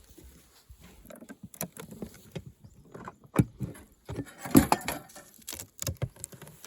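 Irregular knocks, clicks and scrapes of a wooden beehive being handled, with two louder knocks about three and a half and four and a half seconds in.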